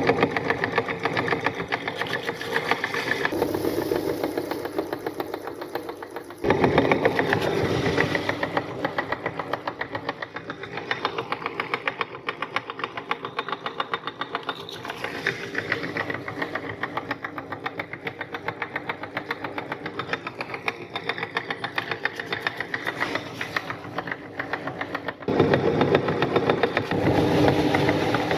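Motor-driven meat grinder running with a fast, even pulsing as it grinds crunchy cookies. The sound jumps louder about six seconds in and again near the end.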